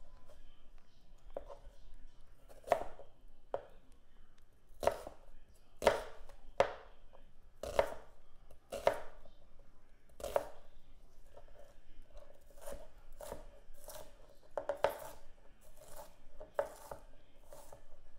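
Large kitchen knife cutting an onion on a plastic cutting board: irregular knocks of the blade striking the board, about one a second at first, then quicker, lighter chops from about twelve seconds in.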